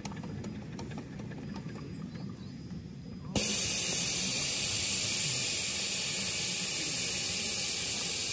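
Loud, steady hiss of escaping steam from a live-steam miniature locomotive, starting abruptly about three seconds in after a quieter low rumble with faint clicks.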